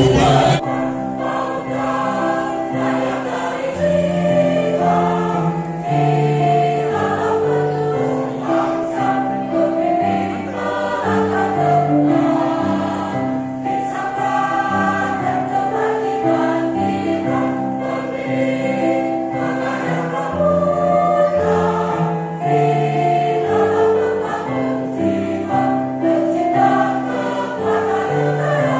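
Mostly female choir singing in harmony, holding long chords that change about once a second.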